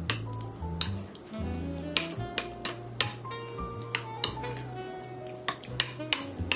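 A metal utensil stirring thick condensed cream of potato soup and water in a glass bowl: sharp clinks of metal against glass every second or so, over a wet mixing noise.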